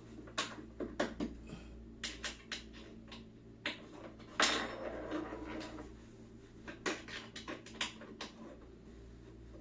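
Office chair parts being handled and fitted by hand: irregular light clicks and knocks of hard plastic and metal, with a longer scraping rustle about four and a half seconds in.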